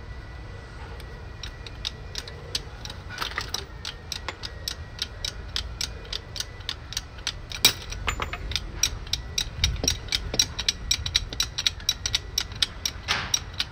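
Ratchet wrench clicking in a steady rhythm of a few clicks a second as a fastener is turned on the Transit Connect's front suspension. The clicks start about a second and a half in and grow louder in the second half.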